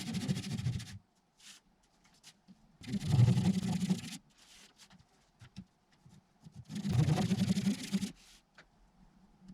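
A tool working wood for honeycomb frames, in three rasping bursts of about a second and a half each, roughly four seconds apart. Light clicks and taps fall between the bursts.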